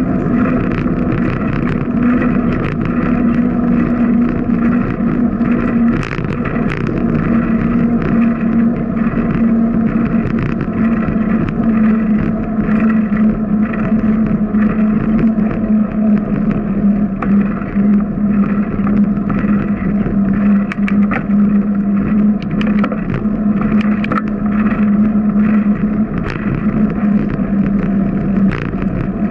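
A bicycle riding along a paved street: a steady hum whose pitch drifts slowly lower as the bike slows, with scattered ticks and rattles.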